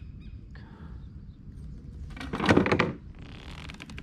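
Handling noise from a small snook being held and unhooked in a kayak: a short burst of thumps and rustling about two seconds in, then softer rustling, over a low rumble.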